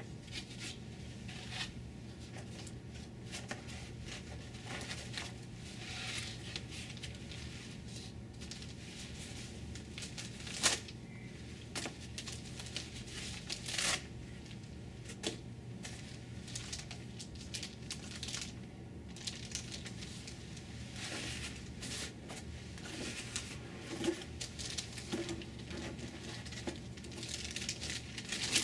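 Laptop packaging being unwrapped by hand: plastic and paper crinkling and tearing, with irregular sharp clicks and rustles over a steady low hum.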